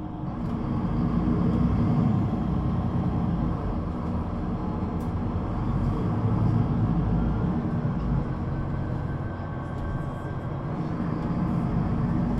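Solaris Urbino 18 III articulated bus's 265 kW DAF diesel engine and Voith automatic gearbox, heard from inside the passenger cabin while driving. The engine sound swells a second or two in, then eases and rises again twice.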